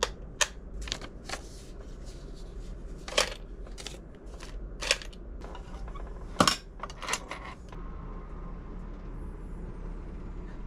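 A series of sharp clicks and knocks, about a dozen spread over the first seven seconds, with the loudest a little past six seconds in, over a low steady hum.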